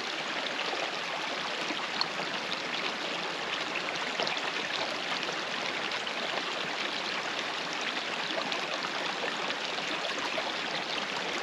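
Small creek running over rocks, a steady rush and trickle of water, with a single faint click about two seconds in.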